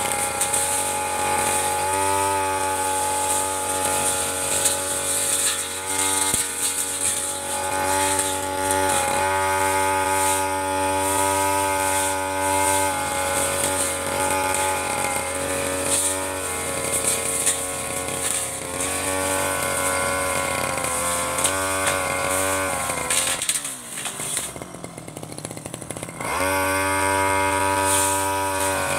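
Two-stroke Stihl 3001 backpack brush cutter running at high revs while its large metal blade cuts tall grass, the engine note wavering slightly as it bites. Near the end the revs drop to idle for about two seconds, then rise back to full speed.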